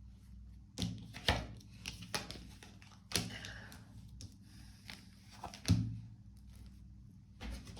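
Irregular light taps and knocks, with a brief rustle about three seconds in: tarot cards being handled and set down on a tabletop.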